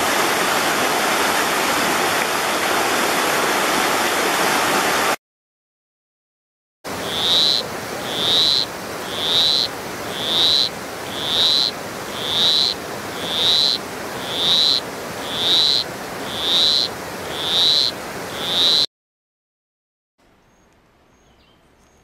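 A rushing mountain stream for the first five seconds. Then, after a short silence, a granular poison frog calls a series of about a dozen short, high chirps, roughly one a second, over a steady background hiss.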